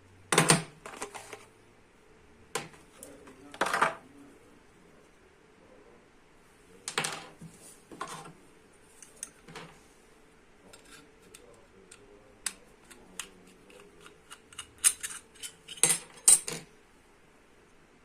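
M.2 NVMe to USB-C adapter and its packaging being handled during unboxing: several short rustling bursts and many scattered sharp clicks of small hard parts, with a quick run of clicks before a last rustle near the end.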